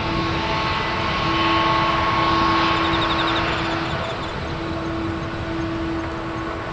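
Boeing 777 airliner's jet engines running at low taxi power as it rolls past: a steady jet noise with a held whining tone, swelling slightly a second or two in and easing off after about four seconds.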